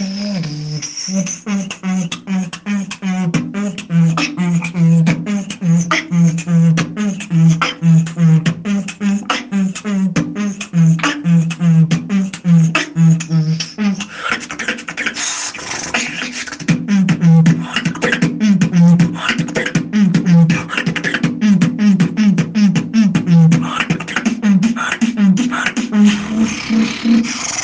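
Solo beatboxing recorded on a phone: a hummed bass line that steps between low notes, under rapid percussive clicks and kick, snare and hi-hat sounds. About halfway through, the bass briefly drops out and the pattern changes to busier, sharper snare and hi-hat sounds.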